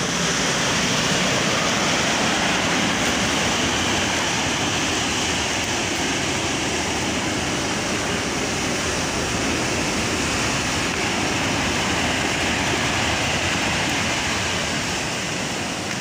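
Sea waves breaking on a rocky shore: a steady rushing wash of surf.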